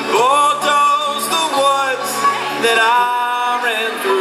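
Live acoustic band music: sustained low guitar chords under a wavering, voice-like melody line.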